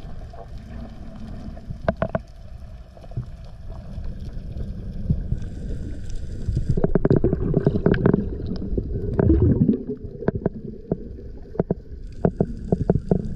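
Underwater sound through a diver's camera housing: a low rush and gurgle of water with many scattered sharp clicks. It grows louder through the middle as the freediver swims up toward the surface.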